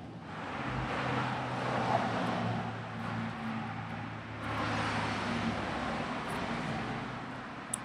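Road traffic passing: swells of rushing tyre noise that rise and fall over a couple of seconds each, over a low engine hum, with one sharp click near the end.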